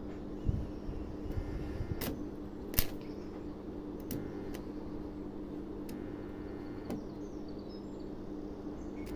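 A steady low hum with scattered knocks and clicks, the sharpest about half a second and nearly three seconds in.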